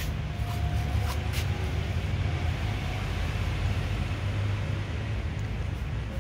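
Steady low outdoor rumble with a few faint clicks early on.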